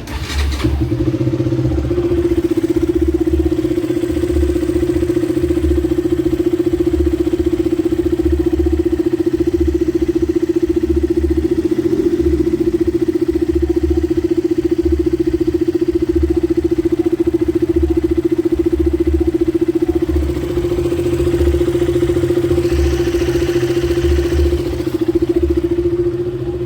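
KTM motorcycle engine running steadily at idle.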